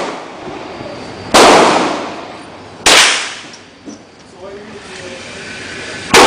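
Three gunshots at a shooting range, about a second and a half apart and then about three seconds later, each with an echoing tail that dies away over about a second.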